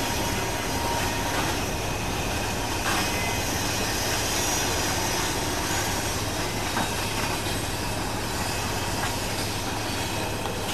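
Norfolk Southern manifest freight train rolling past as it slows to a stop, its brake shoes squealing in thin steady tones over the steady rumble of the cars on the rails.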